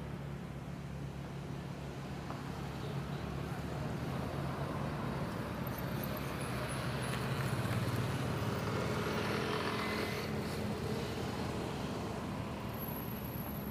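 Road traffic: cars passing on a nearby road over a steady low hum, one car swelling past about halfway through.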